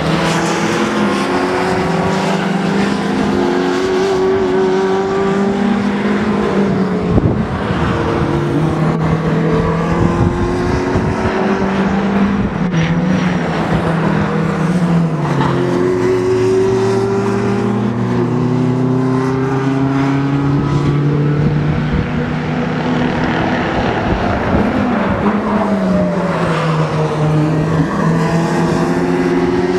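Several Funyo sport-prototype race cars running at racing speed, their engines rising through the gears and falling away on braking, with the notes of more than one car overlapping as they pass.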